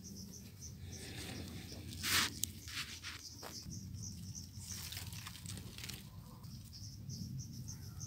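Cricket chirping in a steady run of short, high chirps, several a second. A brief rustle stands out about two seconds in, with softer rustles later and low handling rumble throughout.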